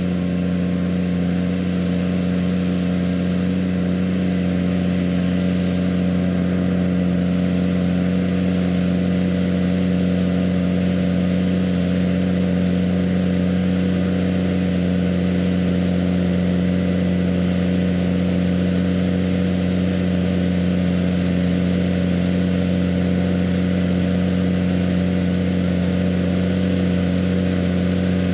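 JCB Fastrac 3230 tractor's diesel engine running at a steady, unchanging speed under heavy load, pulling a six-furrow plough through hard-packed grassland.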